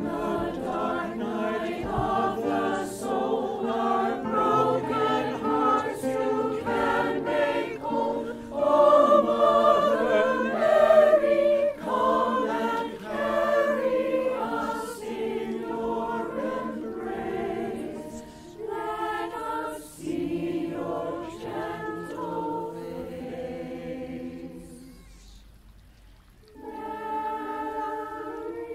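Mixed-voice choir singing a requiem in parts, with keyboard accompaniment. The singing dies away about 25 seconds in, then a new held chord begins near the end.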